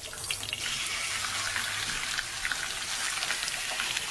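Food frying in hot oil: a steady sizzle with scattered crackles.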